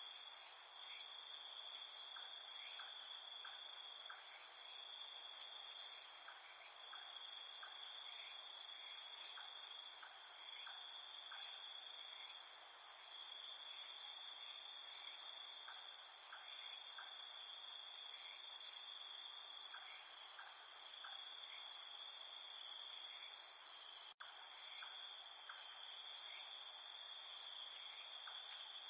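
Steady, dense chorus of crickets with a high, continuous trilling. Softer, lower chirps come in twos and threes every few seconds. The sound drops out for an instant about 24 seconds in.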